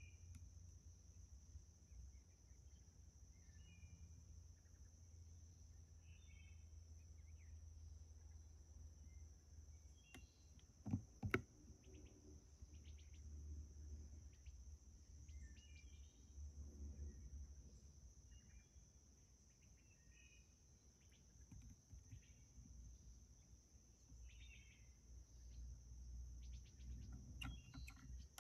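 Faint outdoor ambience: a steady high insect chorus, typical of crickets, with scattered short bird chirps and a low rumble of wind on the microphone. A couple of sharp knocks come about eleven seconds in.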